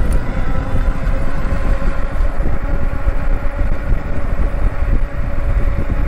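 Engwe EP-2 500 W fat-tyre e-bike at full assist, at about 25 mph: steady wind rush and tyre rumble, with a thin, steady whine from the electric hub motor.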